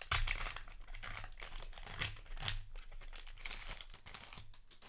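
Foil wrapper of a trading-card booster pack crinkling as it is torn open and handled, a dense crackle that thins out toward the end.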